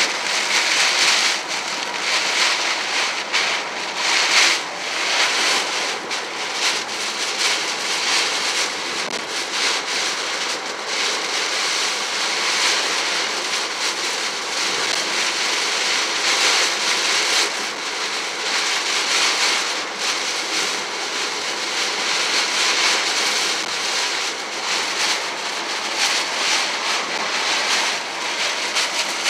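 Heavy rain pelting a moving car's windshield and roof, mixed with tyre spray on the wet road, heard from inside the cabin: a steady rushing hiss that swells and eases with the gusts.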